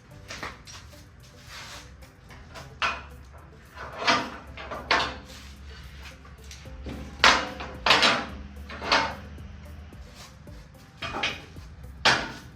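Irregular metallic clanks and knocks of hand tools and engine parts being handled while working on an LS V8 engine, about a dozen strikes spread unevenly, with the loudest near the middle.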